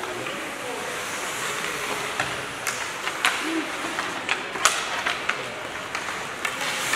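Ice hockey rink during play: a steady murmur of the crowd and arena, with sharp clacks of sticks hitting the puck and ice coming every second or so from about two seconds in.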